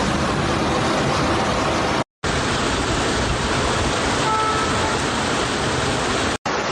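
Steady rushing noise of water, with two brief dropouts to silence, about two seconds in and near the end, where the footage is cut.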